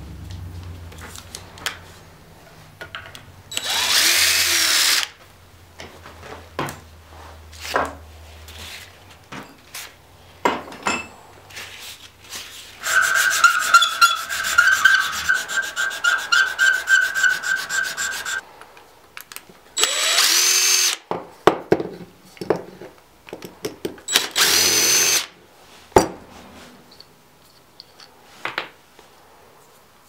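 A small power drill run in short bursts, about four seconds in, near twenty seconds and near twenty-five seconds, with one longer run that holds a steady whine from about thirteen to eighteen seconds. In between come scraping and rubbing sounds of hand work on a knife and its wooden handle.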